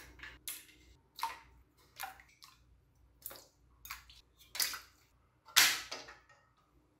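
Plastic parts of a toy sewing machine dropped one after another into a sink full of water, about ten short splashes, the loudest near the end as the large case half goes in.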